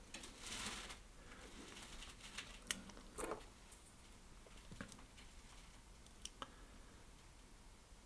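Faint handling sounds at a fly-tying vise: a short rustle, then a few small clicks and taps spread over several seconds.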